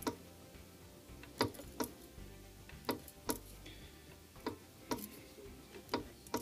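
Home-made rivet punch and die embossing rivet heads into a thin aluminum strip, one after another: sharp metallic clicks in pairs, a pair about every second and a half.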